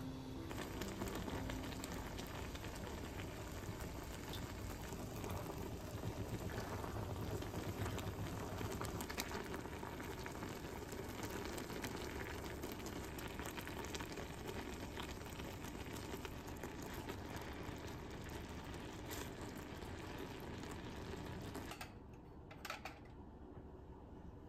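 A pot boiling on the stove, bubbling steadily with a fine crackle of small bursting bubbles. Near the end the bubbling stops, and two light clinks follow.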